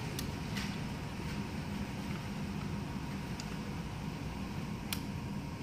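Steady low background hum and hiss, with a few faint clicks of small metal parts being handled as a band strut is worked into an automatic transmission case.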